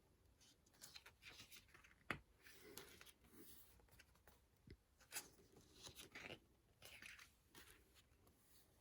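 Faint paper rustling and soft clicks of a photobook's pages being handled and turned, with one sharper tap about two seconds in.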